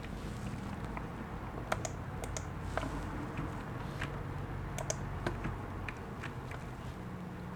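Faint, irregular light clicks, like typing or tapping, scattered about a dozen times over a low steady hum.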